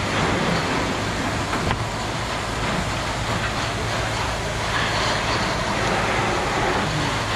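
Fire hose nozzle spraying a strong, steady jet of water, heard as a loud even rush, with a steady low engine hum underneath from the pumping unit.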